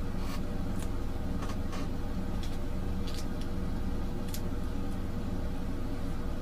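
Blue painter's tape and transfer paper being handled and pressed down: short, scattered crackles and rustles, several in the first few seconds, over a steady low hum.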